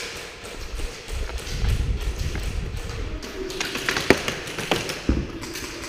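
Movement noise from an airsoft player on the move: taps and thuds of steps and gear, with a low rumble of handling noise on the camera from about a second and a half to three seconds in. A few sharp clicks stand out around four and five seconds in.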